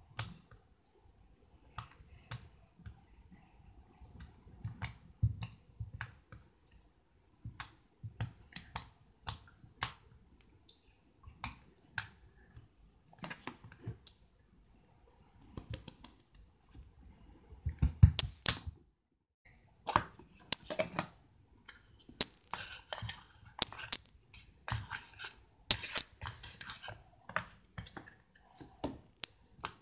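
Homemade slime clicking and popping as fingers press, squeeze and stretch it: scattered sharp clicks that come thicker and louder past the middle.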